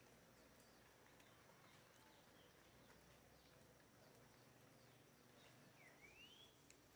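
Near silence: faint outdoor background with a few faint bird chirps, one clearer rising chirp near the end.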